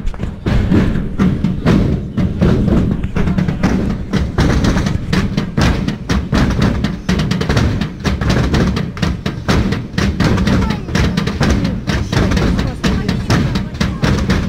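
Loud percussion-led music with heavy drum beats struck in quick succession, and voices over it.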